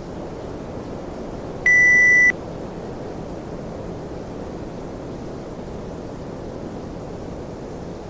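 Air conditioner running with a steady rush of air. About two seconds in, the unit gives one loud, high beep lasting just over half a second.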